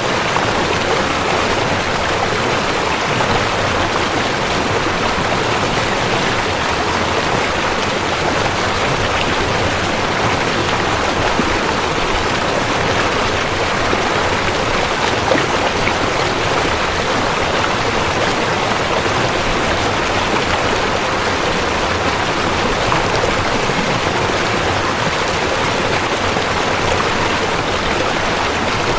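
River water flowing in a steady, unbroken rush, with a few faint splashes.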